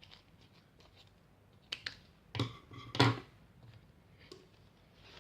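A few sharp clicks, then two louder knocks with a dull thud about half a second apart, from objects being handled and set down on a tabletop.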